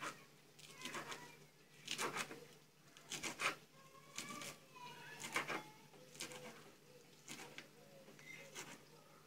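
Kitchen knife chopping fresh mint leaves on a plastic cutting board: about ten short chops at an uneven pace, a few of them in quick pairs.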